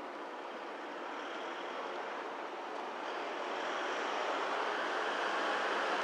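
Steady rushing noise of an approaching vehicle, growing slowly louder over the last few seconds.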